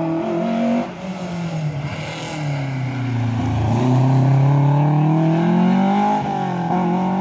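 Rally car engine braking down into a hairpin, the revs falling away about a second in, then accelerating hard out of the bend. The pitch climbs steadily, with a couple of brief dips near the end as it changes gear.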